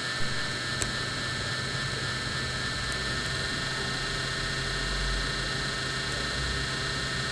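Steady electrical hum and hiss with a low drone, and a couple of faint clicks in the first second.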